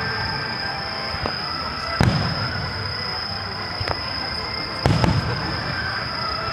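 Aerial fireworks shells bursting in a rapid star mine sequence: sharp booms about two seconds in and again just before five seconds, with smaller pops between them.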